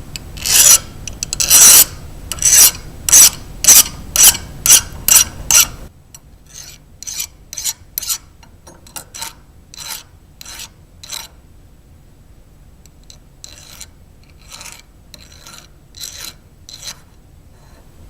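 A brass nut being filed or scraped by hand in quick rasping strokes, about two a second. The strokes are loud for the first six seconds, then lighter, with a short pause past the middle. The surface is being worn through to check that the nut is solid brass and not plated.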